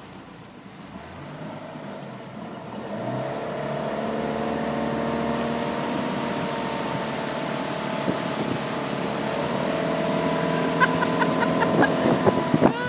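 Motorboat engine throttling up, its pitch rising about three seconds in, then running steadily at speed while towing a tube, with water rushing along the hull. A quick series of short, sharp sounds comes near the end.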